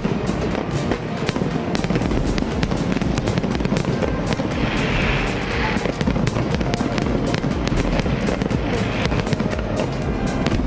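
Fireworks display: a dense run of bangs and crackling bursts, with music playing underneath.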